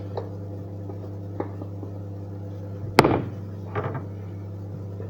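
Microwave oven running with a steady electrical hum, broken by a few faint ticks and one sharp, loud click about three seconds in.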